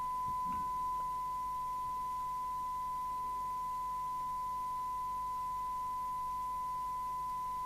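Steady 1 kHz test tone held at an even level: a test signal received by the Midland 4001 FM CB radio and played through its speaker.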